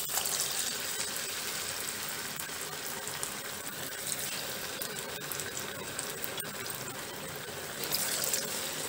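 Batter-coated paneer pakodas deep-frying in hot oil: a steady sizzle and bubbling, swelling louder just after the start and again about eight seconds in.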